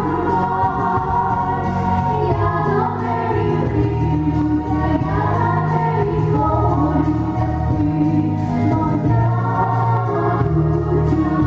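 A woman and a girl singing a Ukrainian lullaby-style song as a duet into microphones, over steady instrumental accompaniment.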